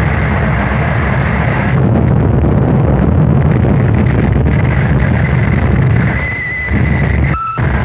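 Harsh noise music: a loud, dense wall of distorted noise, heaviest in the low end. A thin, steady high whistle comes in about six seconds in, and near the end the noise briefly cuts out, leaving only a thin tone.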